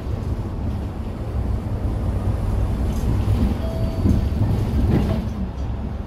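City bus driving, heard from inside the passenger cabin: a steady low rumble of engine and road noise.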